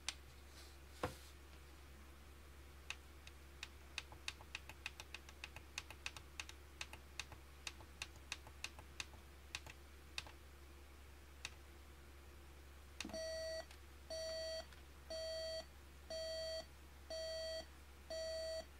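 Plastic buttons on a General Electric telephone clock radio clicked over and over, about three to four clicks a second, while the time is being set. About 13 seconds in, its alarm starts beeping: a high electronic tone of about half a second, repeating once a second.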